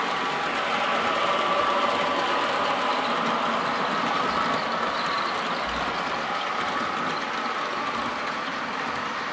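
HO-scale model train, a Broadway Limited GG1 electric locomotive and its baggage and express cars, running past with a steady rolling and running noise.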